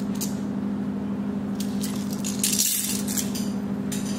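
Gold-plated necklaces being handled on a cloth: faint clinks and rustles of the metal pieces, with a louder rustle about two and a half seconds in, over a steady low hum.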